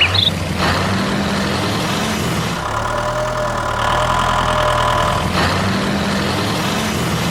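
A vehicle engine idling steadily, a low hum whose pitch shifts slightly twice.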